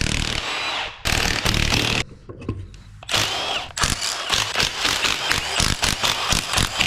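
Handheld power tool, an impact gun, running in several short bursts of about a second each as it backs out the 10 mm bolts of the engine's rear cover.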